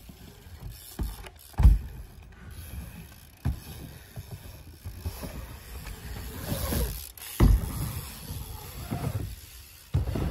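BMX bike riding a wooden ramp: tyres rolling over the boards with a low rumble, and several thuds as the wheels land on or strike the wood, the loudest about a second and a half in.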